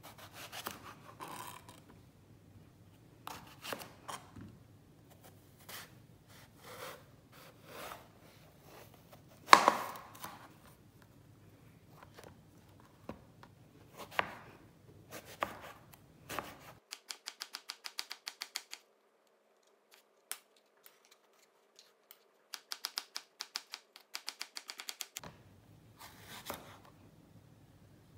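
Chef's knife cutting through eggplant and knocking on a plastic cutting board: single cuts at uneven intervals, then two quick runs of rapid, even slicing strokes in the second half.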